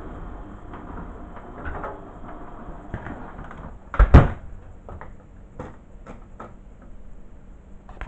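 Hotpoint condenser tumble dryer door swung shut with a single loud thud about four seconds in, with lighter knocks and handling of the door and drum before and after.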